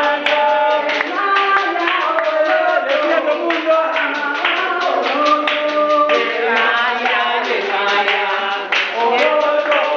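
A woman singing a chant into a microphone, with a group clapping along.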